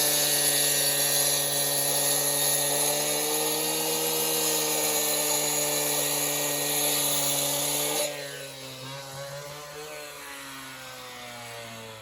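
Two-stroke gas concrete cut-off saw running steadily at high speed. About two-thirds of the way in, the loud hiss cuts off and the engine note falls steadily in pitch as the saw winds down.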